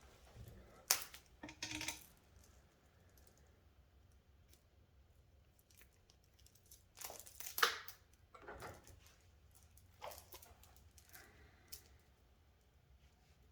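Chainsaw chain clinking and rattling faintly as it is handled and stretched out, in a few short spells of metal clicks with quiet pauses between.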